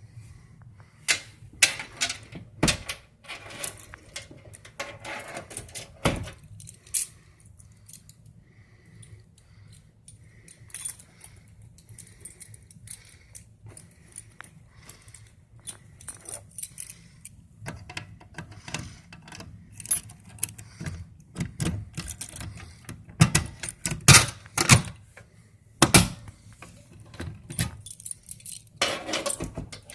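Keys jangling and clicking in irregular bursts of metallic rattles. Faint short beeps come about once a second in the middle stretch.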